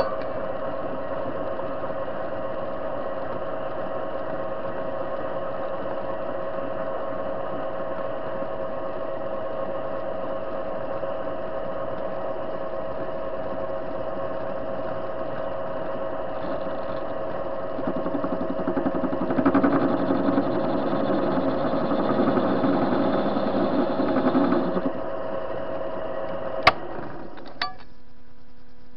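TV-16 metal lathe running with a steady machine hum, turning a steel bar. For several seconds in the second half it grows louder and noisier, then a click near the end stops the hum.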